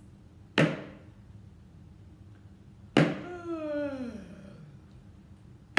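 Homemade pretend drum struck slowly, single hits about two and a half seconds apart, three in all, the last at the very end. After the second hit a short falling voice-like sound.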